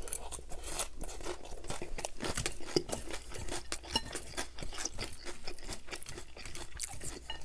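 Open-mouthed chewing of a crunchy mouthful of salad: lettuce and shredded cabbage crackling in a dense, irregular run of small crunches. A metal fork scrapes and clicks against the ceramic salad bowl as more is picked up.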